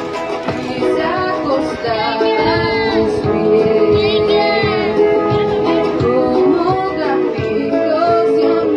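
A woman singing a Spanish-language ballad into a microphone over instrumental backing music.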